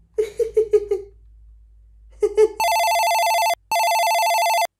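A man laughs in short bursts, then a telephone rings twice with a fast two-tone warbling trill, each ring about a second long with a short break between.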